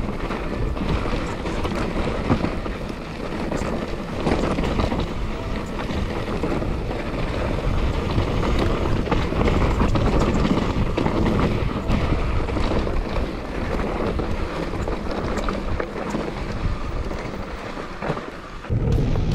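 Wind buffeting a bike-mounted action camera's microphone as a mountain bike rides down a rocky trail, with the steady rumble and clatter of tyres and frame over loose stones. Near the end the noise dips briefly.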